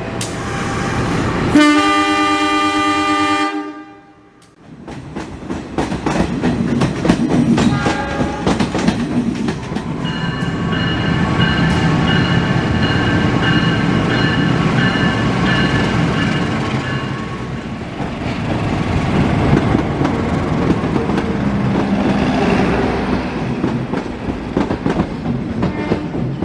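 A train horn sounds once for about two seconds and stops sharply. Then a train runs on the rails, a steady heavy rumble with dense clattering clicks from the wheels.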